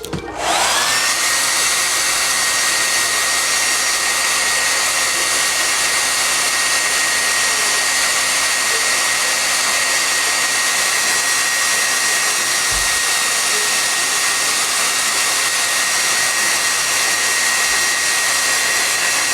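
Hair dryer switched on, its motor whine rising quickly as it spins up, then running steadily with a loud rush of air.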